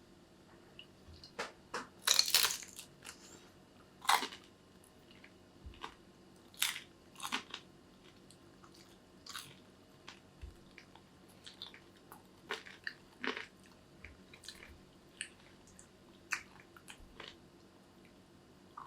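A person eating close to the microphone: crunchy bites and chewing, heard as scattered short crunches and clicks, loudest about two seconds in and again at about four seconds.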